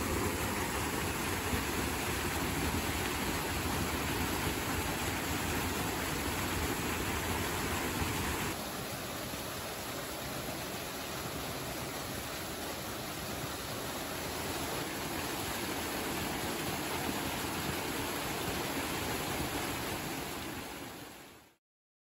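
Small waterfall pouring onto a stone-paved pool, a steady rush and splash of water. It drops a little in level about eight seconds in and fades out just before the end.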